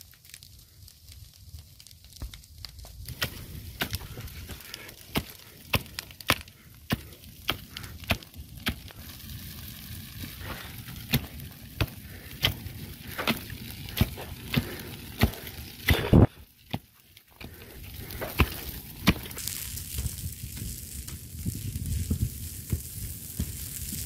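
Dry scrub and brush burning in a wildfire, crackling with sharp irregular snaps over a rustling hiss. The snaps come about once a second or faster through most of it and thin out near the end.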